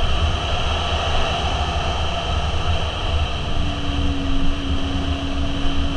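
Motorcycle running at a steady cruising speed, with heavy wind rumble on the microphone over the engine's hum. About halfway through, the engine's note settles into one even tone.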